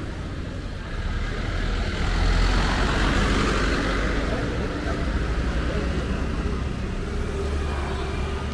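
Street traffic: a motor vehicle passes, swelling and loudest about two to three seconds in, then fading back to a steady low rumble.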